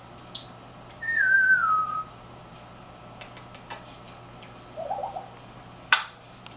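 African grey parrot whistling: one wavering whistle about a second long that falls in pitch, with a brief high chirp just before it and a short low warble later. Several small clicks and one sharp click near the end.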